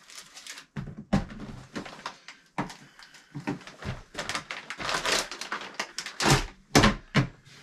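Irregular knocks and clunks of hard plastic as a portable toilet is shifted and lifted apart by hand, with the loudest thunks about six to seven seconds in.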